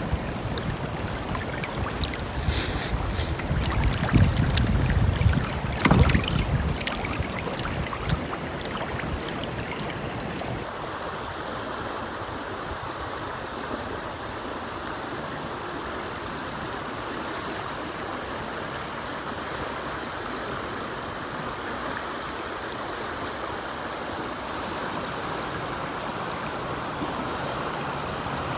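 Creek water running steadily around a kayak. Over the first ten seconds there are a few knocks and low rumbling from wind on the microphone.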